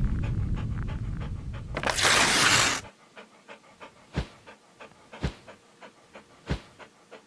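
Cartoon sound effects of a dog panting in quick short breaths. A low rumble fades out first, a short loud hissing burst comes about two seconds in, and a few soft thuds fall under the panting later on.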